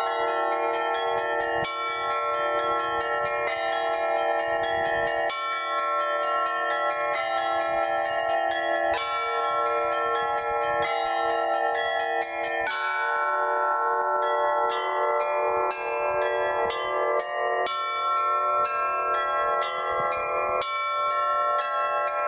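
Russian Orthodox church bells (zvon) rung by hand by one bell ringer as an improvisation: quick repeated strikes on the small bells over the sustained ringing of the larger ones. About thirteen seconds in, the lowest bell stops and the figure changes to a lighter, quicker pattern.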